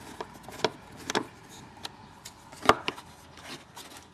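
Scattered clicks and knocks of a screwdriver working Phillips screws out of the plastic body of a ride-on toy tractor, with one louder knock about two-thirds of the way through.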